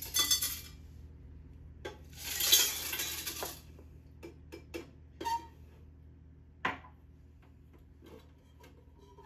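Ice cubes poured into a beverage dispenser's stainless steel cooling cylinder, rattling and clattering in two pours, the second longer, about a second and a half. A handful of separate clinks and knocks follow as the ice settles and the cylinder is handled.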